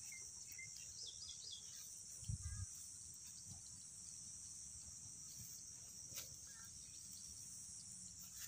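Faint rural ambience: a steady, high-pitched chirring of insects with a few short bird chirps, and a brief low thump about two seconds in.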